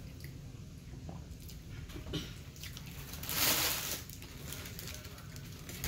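A person eating close to the microphone: soft wet squishing and chewing of a fried-fish sandwich and ketchup-covered fries, with a few small clicks and one louder noisy burst under a second long about three and a half seconds in.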